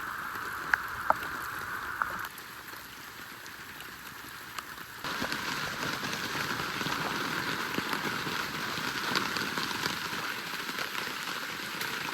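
Steady rain pattering on a plastic tarp shelter, with a few sharp ticks in the first two seconds. The hiss drops abruptly about two seconds in and comes back louder about five seconds in.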